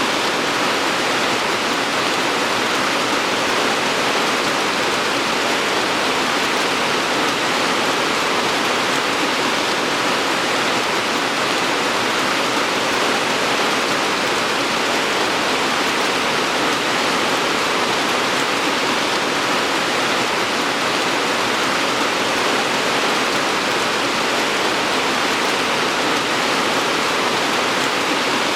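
Steady, even rainfall hiss without distinct drops or breaks.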